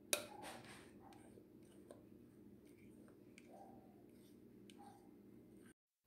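Faint clicks and light taps from small objects being handled, over a low steady hum, with one sharper click just after the start. The sound cuts off abruptly near the end.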